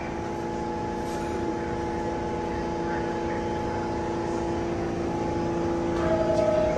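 R46 subway train standing at the platform with its doors open, giving off a steady electrical hum. Near the end, a brighter tone begins: the start of the door-closing chime.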